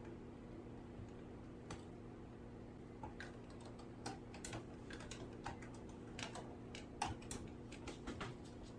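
Scattered light clicks and taps at an uneven pace over a steady low hum, all faint.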